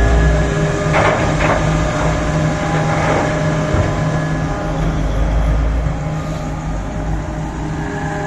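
Komatsu PC4000 mining excavator running steadily under load while its bucket scrapes against solid rock, with three short harsh scrapes about a second, a second and a half and three seconds in. The scraping comes from poorly blasted ground that the excavator struggles to dig into.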